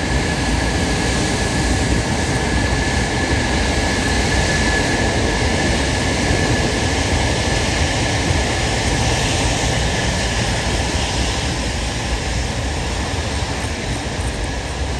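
Antonov An-225 Mriya's six turbofan engines running at taxi power as the aircraft turns on the runway: a steady deep rumble with a thin high whine that fades near the end.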